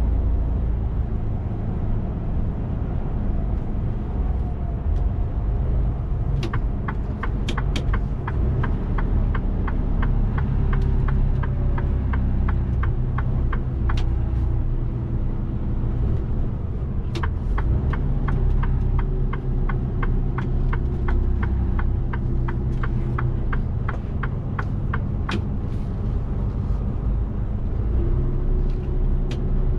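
Mercedes Actros 1851 truck's straight-six diesel and road noise droning steadily inside the cab at motorway speed. Over it, the turn-signal indicator ticks at an even pace in two spells, starting about a fifth of the way in and again past the middle.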